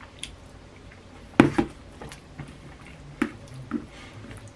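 Eating sounds: quiet chewing of a soft mouthful of pulled pork, potato and beans, with a few sharp clicks and taps of a fork in a plastic meal pot, the loudest about a second and a half in.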